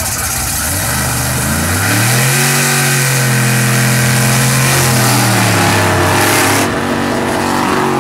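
Drag car's engine revved up and held at high revs for a burnout, the rear tyres spinning and smoking. The revs drop briefly about six and a half seconds in, then climb and hold again.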